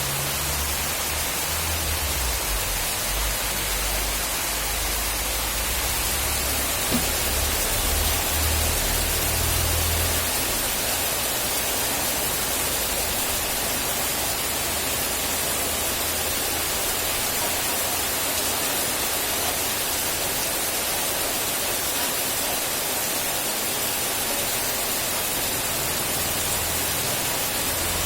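Steady heavy rain, an even hiss, with a low rumble underneath for about the first ten seconds.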